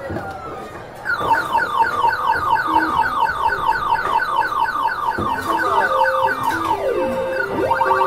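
Electronic arcade machine beeping: a fast run of short falling beeps, about six a second, starting about a second in. Near the end a low stepped electronic melody and a falling then rising glide join in.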